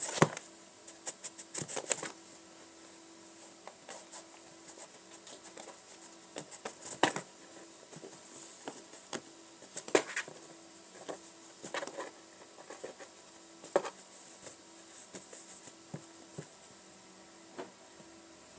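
Kittens scuffling on carpet right at the camera: scattered, irregular taps, scratches and soft clicks of paws and claws, with a few louder knocks as a kitten bumps against the camera.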